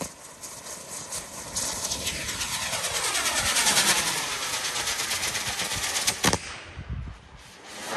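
Girandola firework lifting off and climbing, its motors rushing while its gold glitter gives a dense, fast crackle; a single sharp bang about six seconds in.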